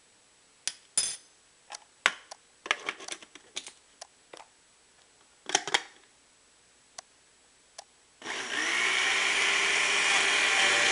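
Plastic blender jar and lid knocking and clicking as they are fitted in place, a series of separate sharp knocks. About eight seconds in, the countertop blender's motor starts and runs steadily, blending a strawberry smoothie.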